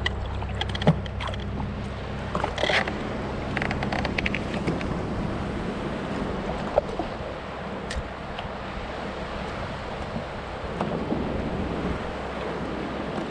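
Jet ski engine idling steadily under wind and water noise, with a few short clicks and knocks, the sharpest about a second in.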